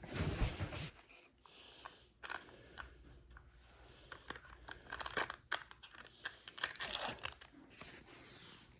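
Takeout food packaging being handled: paper and plastic rustling and tearing, with a louder rustle in the first second and scattered small crackles and clicks after it.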